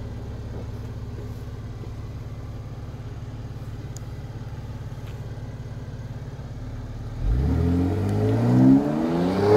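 BMW X3 M Competition's twin-turbo inline-six idling steadily, then, about seven seconds in, rising fast in pitch and getting much louder as the SUV launches hard from a standstill in performance mode. A sharp crack comes near the end.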